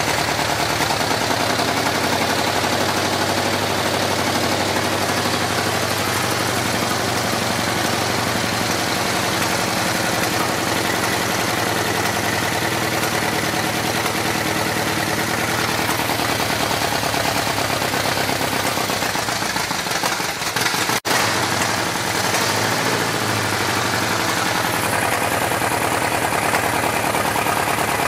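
Chevy 350 small-block V8 in a Farmall H tractor running roughly through its upright exhaust stacks, as air-fuel and timing adjustments are made; the owner takes the rough running for burnt valves.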